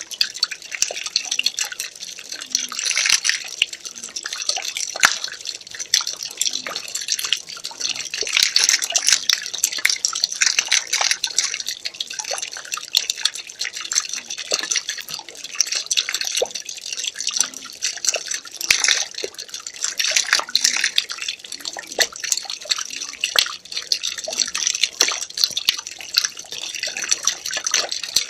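Water pouring and splashing into water: a continuous trickle full of small drips and splashes, swelling and easing every few seconds.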